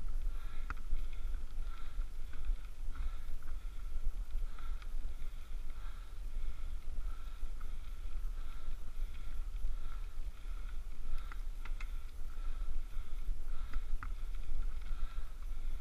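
A bicycle being ridden up a steep climb: steady low wind rumble on the camera microphone, with a faint rhythmic sound about one and a half times a second.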